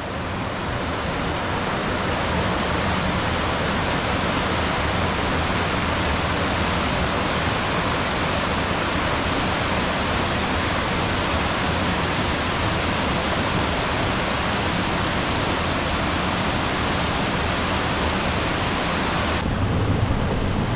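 Waterfall pouring: a steady, loud rushing of falling water. Near the end the sound turns duller and deeper.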